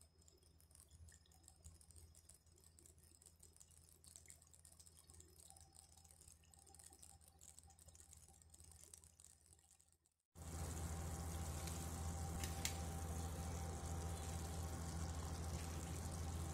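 Mustard fish curry gravy bubbling as it simmers in a pan. For the first ten seconds it is faint, with small crackles. Then it cuts suddenly to a louder, steady bubbling with a low hum beneath.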